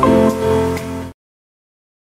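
Intro background music of pitched instrumental notes that cuts off abruptly a little past halfway, leaving dead silence.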